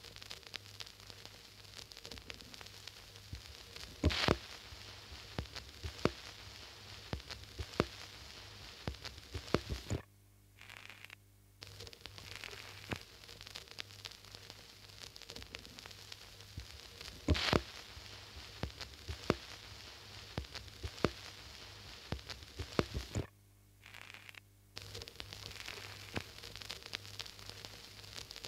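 Crackling static: a steady hiss with a low hum and scattered clicks and pops, cutting out briefly twice. The pattern repeats about every thirteen seconds, like a looped noise bed.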